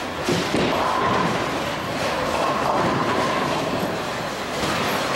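Bowling ball rolling down the lane just after release, a continuous rumble, amid the clatter of a busy bowling alley.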